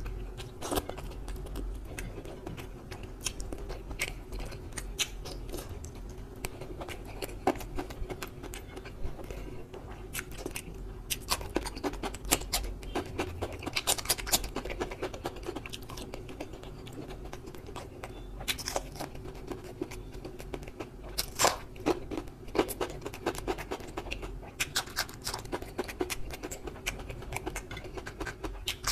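Close-up eating sounds of a person eating by hand: wet chewing, lip smacks and clicks, with sharper crunchy bites about halfway through and again later, over a faint steady hum.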